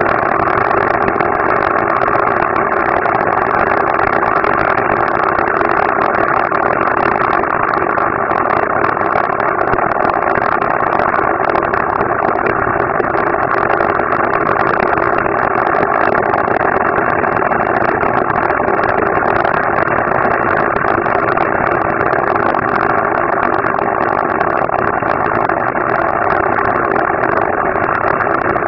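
A huge string of about 16,000 firecrackers going off, played back at quarter speed, so the rapid bangs run together into a dense, continuous din with steady loudness and no single bang standing out.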